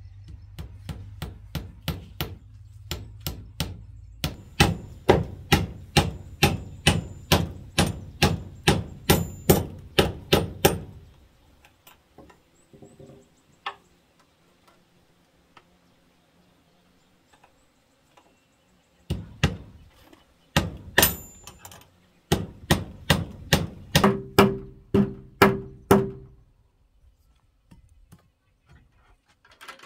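Hammer striking nails into a wooden door and its frame, about two blows a second, in two runs: the first lasting about eleven seconds, the second starting about nineteen seconds in and lasting about seven.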